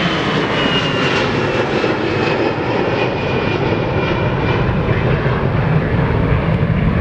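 De Havilland Dash 8-300's twin Pratt & Whitney PW123 turboprop engines running loud and steady at takeoff power, with a faint high whine that slowly falls in pitch over the first few seconds.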